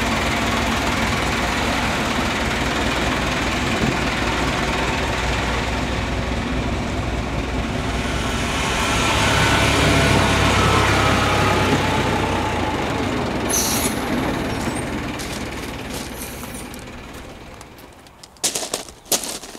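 Small 12-inch-gauge diesel locomotive's engine running steadily, swelling about halfway through and then dying away. A few sharp clicks near the end.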